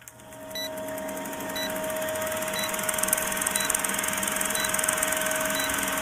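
Old film-projector rattle sound effect with a steady hum, fading in over the first second or two, and a short high beep once a second, as on a film countdown leader.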